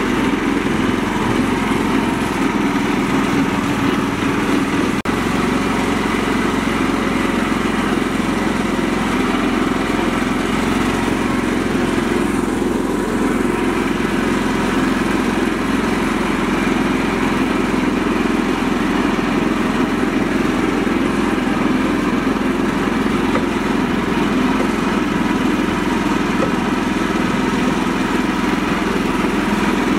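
Mini tractor's engine running at a steady speed as the tractor drives along, loud and unchanging throughout.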